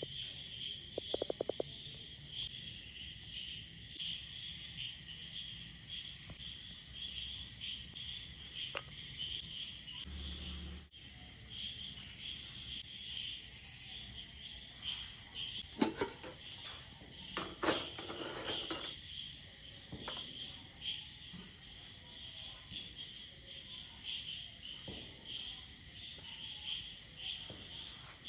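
Crickets chirping steadily in rapid pulses, with a few sharp knocks a little past the middle.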